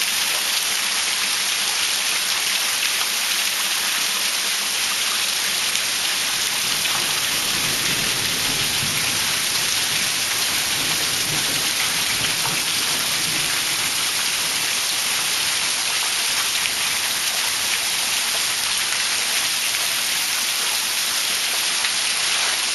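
Heavy monsoon downpour: a dense, steady hiss of rain falling hard on surfaces.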